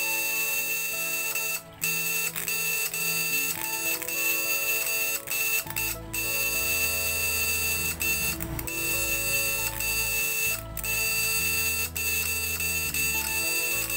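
Platino-type fish stunner buzzing steadily as its vibrating contact-breaker points chatter on battery power, cutting out briefly a few times, its lower drone changing pitch about halfway through and again near the end. An even buzz like this is, by the builder's account, the sign that the points are working without overheating.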